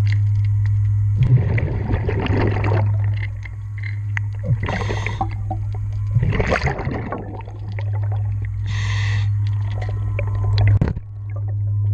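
A diver breathing through a regulator underwater: rushing bursts of exhaled bubbles about a second in, around six seconds and near the end, alternating with shorter hisses of inhaled air. A steady low hum runs underneath.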